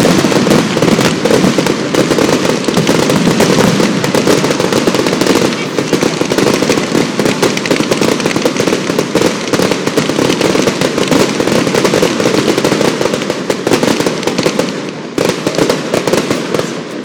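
Fireworks finale: a continuous barrage of overlapping bangs and crackle from many shells bursting at once.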